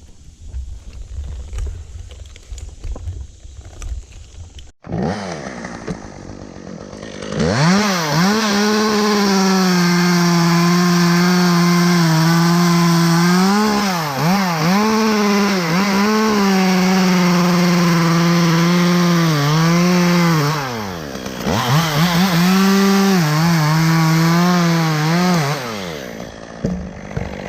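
Chainsaw revving up to full speed and cutting wood, its pitch sagging under load several times. It drops away briefly about twenty seconds in, revs up again, then winds down near the end.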